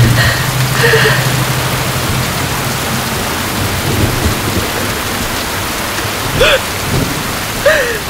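Heavy rain falling steadily, a dense hiss. A low hum fades out about three seconds in, and two short rising-and-falling cries sound near the end.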